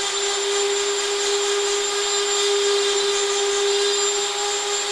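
Hand-held rotary tool running at a steady speed with a steady whine, its fine bit cutting into antler and quickly removing material with the edge of the bit in a raking motion.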